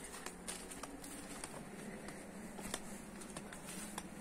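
Soft footsteps through grass and dry leaves, heard as small irregular ticks and crackles, over a faint low hum.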